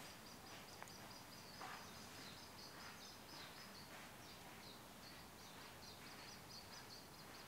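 Faint, high-pitched chirping of small birds: many short notes in quick succession over a low background hiss.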